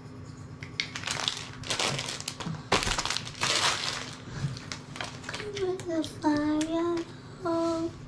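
Crinkling of a foil toy blind-bag wrapper being handled and crumpled, in several loud bursts over about three seconds. Near the end a voice sings a few held, sliding notes.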